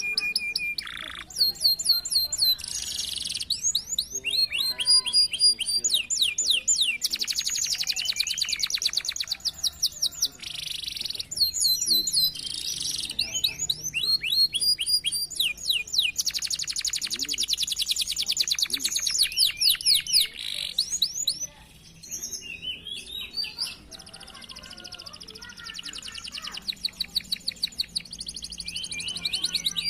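Domestic canaries singing continuously: long, fast rolling trills and runs of rapid repeated chirps, phrase after phrase, with a short lull about two-thirds of the way through.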